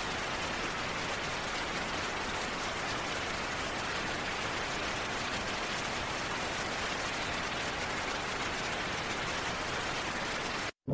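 Steady rain, an even hiss that does not change in level, cutting out abruptly near the end.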